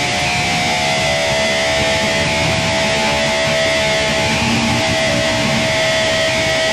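Loud noise music: a dense, churning wall of distorted sound with one long held note.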